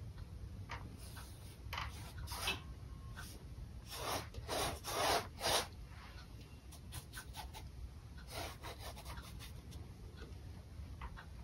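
Flat bristle paintbrush scraping and rubbing acrylic paint across a stretched canvas in a series of short strokes, with the loudest cluster of strokes about four to six seconds in.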